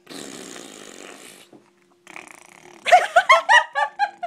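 A baby making a raspy, breathy growling noise with her mouth for about a second and a half. About three seconds in comes a quick run of short, pitched laughs.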